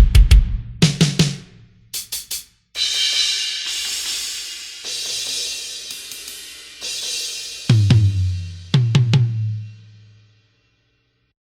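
Sampled acoustic rock drum kit from the EZdrummer 3 Hard Rock EZX library. It opens with a run of sharp drum hits and a few quick cymbal strikes, then crash cymbals ring and wash for several seconds. Near the end come low drum hits that ring out and fade away.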